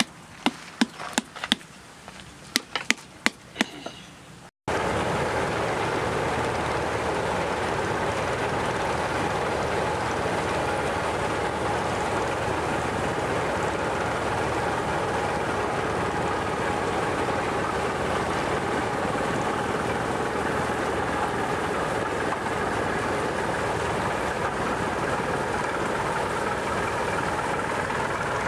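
A flat wooden paddle beating a round clay pot about a dozen times, in sharp, uneven strikes, to close the pot's bottom. After a sudden cut, a boat engine running steadily, heard from aboard.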